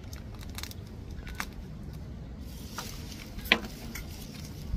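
Plastic zip-top bag crinkling and small clicks as the bag is handled with a knife, with one sharp click about three and a half seconds in, over a low steady rumble.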